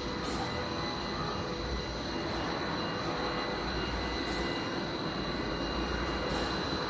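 Rotary pleating machine for HVAC filter media running steadily: a continuous mechanical hum and rumble with a few constant high-pitched whines, and faint light ticks now and then.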